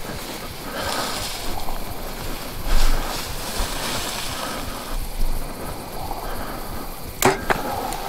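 Wind on the microphone and rustling through tall dry grass, then two sharp cracks about a quarter second apart near the end.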